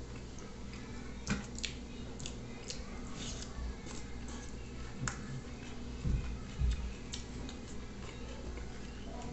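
Wet chewing and lip-smacking of a man eating meatballs in tomato sauce and spaghetti with his fingers, with scattered sharp mouth clicks. Two low thumps come about six seconds in, over faint background music.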